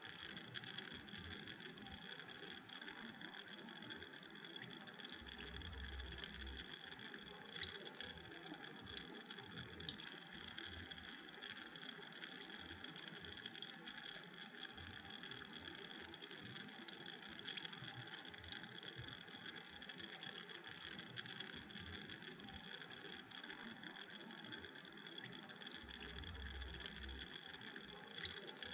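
Carbonated drink fizzing: a steady high hiss of bubbles bursting, sprinkled with many tiny pops.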